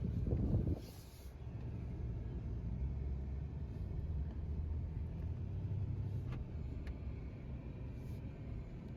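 A car being driven, heard from inside the cabin: a steady low engine and road rumble, louder for the first second, with two faint clicks about two-thirds of the way through.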